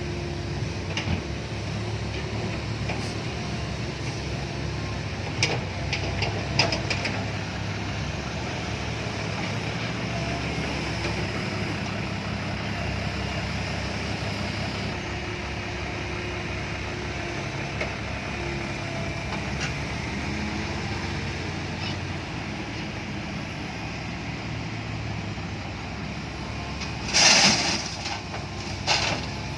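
Komatsu PC130-8 excavator's diesel engine running steadily, with a few sharp metallic clanks about six seconds in and a loud rushing burst near the end.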